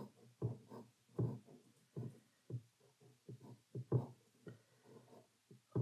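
A pen drawing short strokes on rough watercolour paper: a string of soft, separate scratches and taps, roughly two a second.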